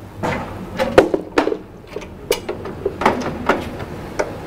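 Irregular metallic clunks and clicks, about six, from the noodle-cutting roller being pushed and jiggled into the frame of an MKS-350 noodle machine. Its gear is not yet meshing with the machine's drive gear, so the cutter is not seated.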